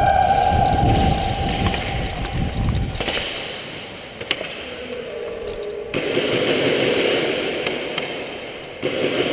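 A siren winding down, its wail falling away in the first second, followed by a noisy stretch with a few sharp clicks.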